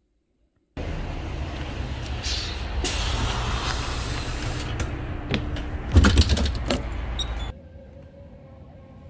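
City bus engine running with a loud, steady rumble, a clatter peaking about six seconds in. The sound cuts off suddenly near the end to a faint steady room hum.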